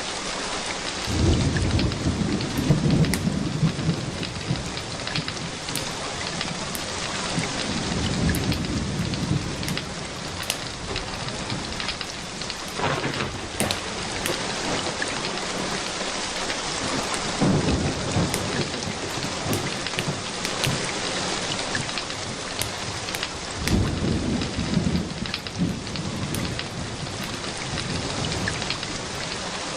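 Steady rain with several low rolls of thunder swelling and fading, about four times.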